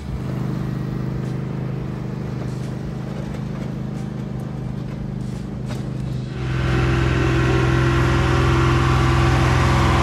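Engine running steadily, then louder and noisier from about six seconds in, holding there.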